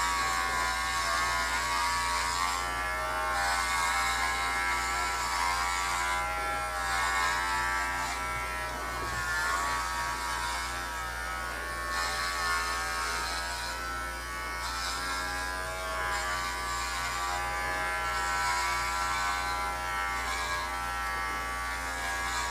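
Cordless electric pet clippers running steadily as they cut through a dog's coat: a continuous buzzing hum whose pitch wavers slightly at times.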